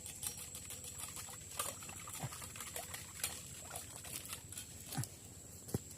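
Scattered light clicks and small taps at irregular intervals, over a steady high-pitched insect trill.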